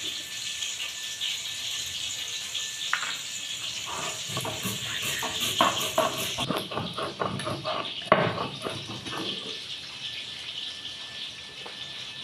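Stone muller rubbed and rocked on a flat grinding stone (shil-nora), crushing mustard seeds with green chillies: irregular scraping with many small clicks and knocks, busiest from about 3 to 10 seconds in, over a steady hiss.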